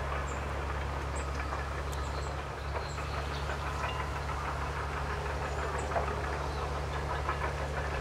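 Steady low mechanical hum, like a distant engine or machinery, with a few short, faint, high-pitched bird calls over it.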